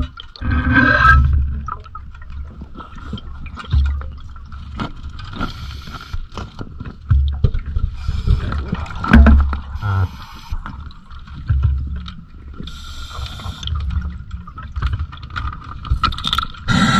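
Underwater sound of a diver's breathing gear: hissing, gurgling bursts of breath and bubbles about every three to four seconds, over a low rumble and a faint steady whine.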